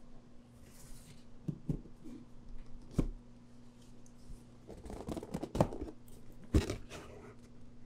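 Paper carrier bag rustling as a cardboard gift box is pulled out of it and set down on a wooden table with a knock, then more rustling and knocks as the box is handled.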